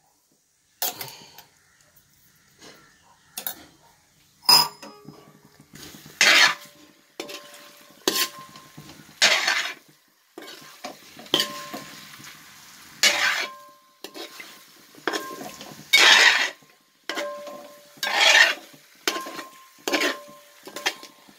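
A spoon stirring and scraping chicken masala in a large aluminium pot, in repeated strokes every second or two, with a sharp metallic clink about four seconds in.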